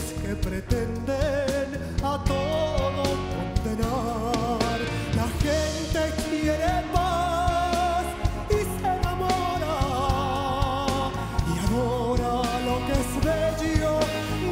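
A man singing live in a flamenco-tinged voice, holding long notes with wide vibrato, backed by a band with bass and drums.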